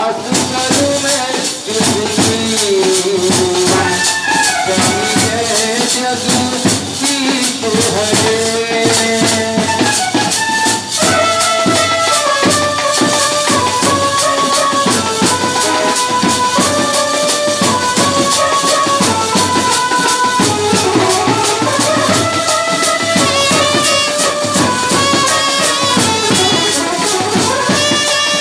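Indian street band playing loud: a melody of held notes stepping up and down over dense, fast drumming and rattling percussion.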